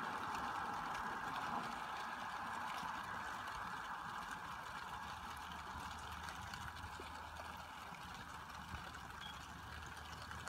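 Steady hiss of rain on a wet street, slowly growing fainter, with a low steady hum coming in about halfway through.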